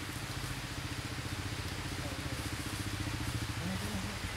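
An engine running steadily at idle, a low, rapidly pulsing hum.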